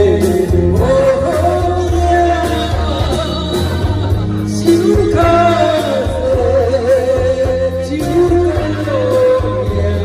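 A song sung over backing music: one voice carrying a gliding, held melody above a steady bass accompaniment.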